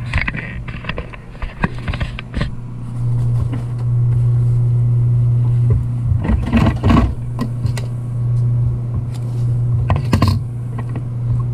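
Consew 226 industrial sewing machine's motor running with a steady low hum, while fabric and vinyl are rustled and shifted under the presser foot. There are louder bursts of handling noise about six to seven seconds in and again about ten seconds in.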